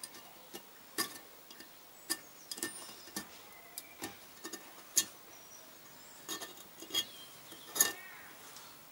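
Small hand tool scraping and ticking against the aluminium cylinder block of a Kawasaki 500 twin while cleaning up the inside passage between the bores: irregular sharp metallic clicks, one or two a second, over a faint scrape.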